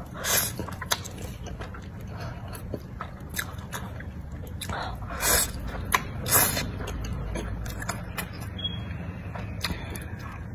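Close-up mouth sounds of a person eating wide, flat spicy noodles: three louder slurps, each about half a second long, come near the start, around five seconds in and around six and a half seconds in, with wet chewing and small mouth clicks in between.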